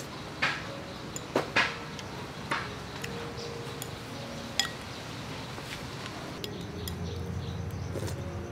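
Metal spoon clinking against a ceramic soup bowl several times, mostly in the first half, as soup is scooped and eaten.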